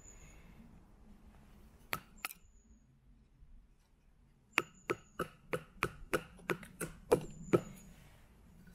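A small bushcraft knife, the Taxus Wisdom with its 9 cm blade, chopping into wood: two sharp knocks, a pause, then a quick run of about ten chops at roughly three a second.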